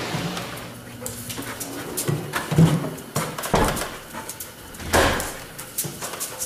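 A dog moving about on a garage floor, making a few short low whines or grunts, with scattered knocks and clicks of movement.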